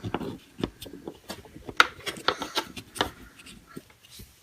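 Small plastic clicks and taps of Play-Doh tools and scissors being handled, scattered irregularly, with soft rubbing of the clay.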